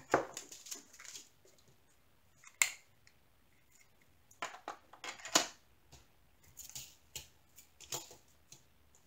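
Small clear plastic zip bags holding diamond painting drills being handled on a tabletop: scattered crinkles and sharp ticks, the two loudest about two and a half and five seconds in.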